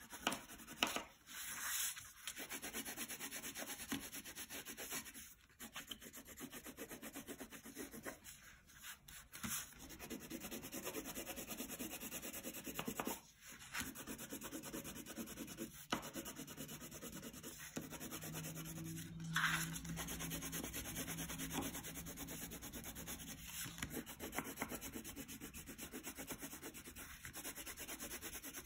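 Wax crayon rubbing on paper in rapid back-and-forth strokes as a large area is coloured in, with brief pauses every few seconds.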